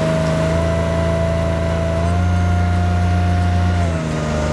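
Work boat's engine and hydraulic system running steadily: a low hum under a held whine. The whine rises slightly about two seconds in, and the low hum drops away near the end.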